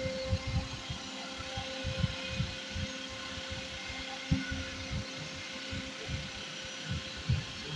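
Handling noise: irregular soft low thumps and rubs as the wooden handle is turned in the hands close to the microphone, over a steady faint hum.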